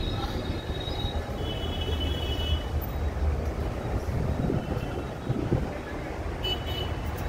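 Steady rumble of city street traffic heard from inside a standing tram car, with a few short, high vehicle horn toots: two in the first few seconds and one near the end.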